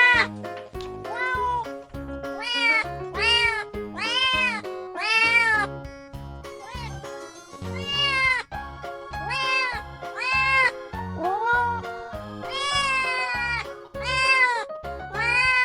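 Kittens meowing over and over, about one meow a second, each call rising and then falling in pitch. Background music with a steady beat plays underneath.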